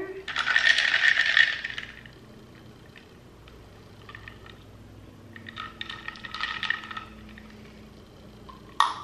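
Coconut water poured from a bottle into a glass jar of iced coffee, splashing for about two seconds. About halfway through, a second, quieter stretch of clinking and rattling in the glass jar.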